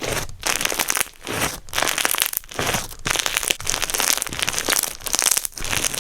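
Slime being squeezed and worked by hand, giving a crackling, crinkling sound in repeated strokes about every half second to a second.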